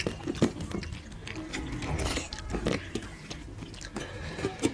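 People eating rice and chicken liver curry with their hands: chewing and lip-smacking heard as a scatter of short, wet clicks, with fingers working rice on steel plates.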